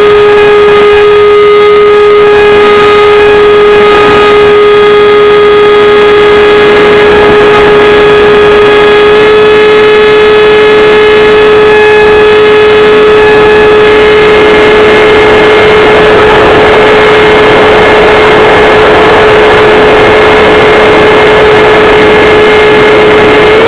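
Electric ducted fan of a 70 mm model F-4 Phantom jet, running at steady part throttle with a loud, even whine over a rush of air, heard close up from a camera mounted on the model. Right at the end the whine rises sharply in pitch as the throttle is opened.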